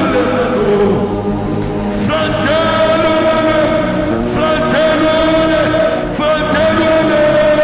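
Slow worship music with a voice holding long sustained notes, each starting with a short rise in pitch and starting again about every two seconds.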